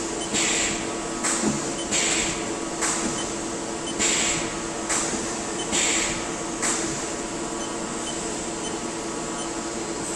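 Haas SL30 CNC lathe running with a steady machine hum, overlaid by a series of short hissing bursts about once a second that stop about seven seconds in.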